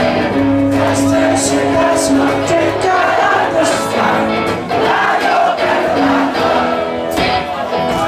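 Live indie rock band playing amplified electric guitars, with the crowd singing along over the music.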